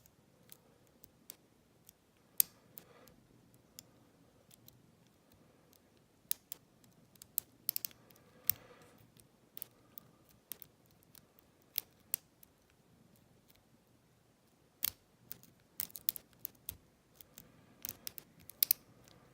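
Lock pick and tension wrench working inside an old Lockwood lock cylinder during single-pin picking: irregular small metallic clicks and ticks, a few of them sharper and louder, clustering more densely near the end.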